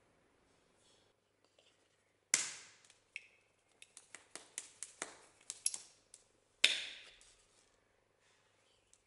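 Steel axe head and its wooden sheath knocking and clicking together as the sheath is handled and taken off the blade. Two sharp knocks that ring briefly, one about two seconds in and one about two-thirds of the way through, with a quick run of small clicks between them.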